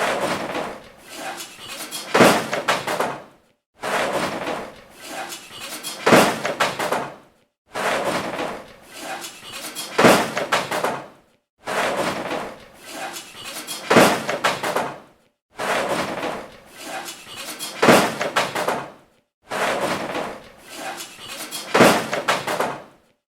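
Garbage and junk crashing and tumbling: a clattering run of hard impacts, including metal, that ends in a louder crash. It repeats about six times, each time after a short silent gap.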